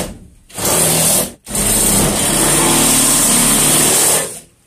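Cordless drill boring into the van's steel roof rib to drill out the spot welds that hold it, in a short run then a longer run of about three seconds, stopping near the end.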